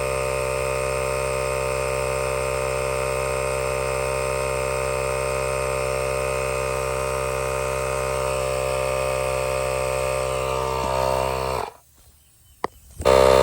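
Portable 12-volt tire inflator compressor running with a steady hum, pumping air into a tire whose hole is too big for the sealant, so the tire does not inflate. About a second and a half before the end it cuts out briefly, with a single click, then starts again.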